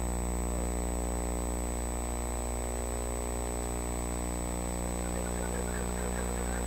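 Steady electrical mains hum and buzz from the sound system, with a thin steady high whine above it and faint voices in the background.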